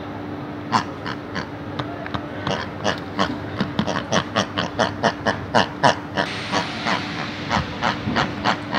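Rapid series of short pig-like grunts and squeals, about three a second, starting just under a second in, over a steady low hum.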